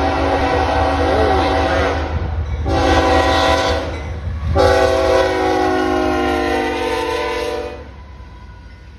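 Air horn of a BNSF diesel locomotive leading a freight train, sounded in three blasts with the middle one shorter, over the rumble of the engines and wheels. The horn stops a little before the end, leaving the quieter rumble of the passing train.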